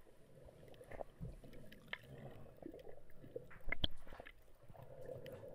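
Underwater sound picked up by a submerged camera: faint scattered clicks and crackles over a low murmur, with a louder cluster of clicks a little under four seconds in.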